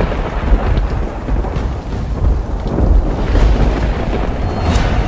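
Deep, rolling thunder rumble that swells and fades, with a sharp crack near the end.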